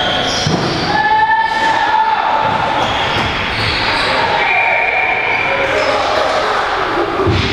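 Box lacrosse game in an indoor arena: players and spectators shouting and calling, echoing in the hall, with a couple of dull thuds, one about half a second in and one near the end.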